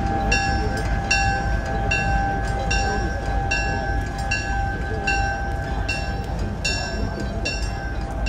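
A railroad bell ringing at an even pace, a bit more than one strike a second, over a steady tone and a low rumble.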